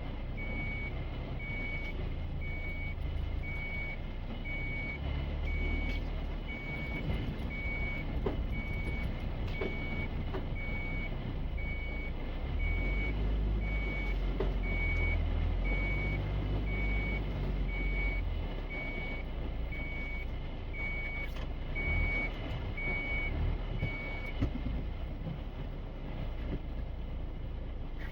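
A vehicle warning beeper sounding a steady run of evenly spaced single-tone beeps over a running engine's low rumble; the beeping stops near the end.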